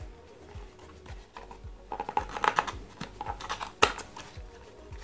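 Hands opening a small cardboard box. From about two seconds in there is a run of light clicks and scrapes as the flap is worked open, with one sharper snap near four seconds.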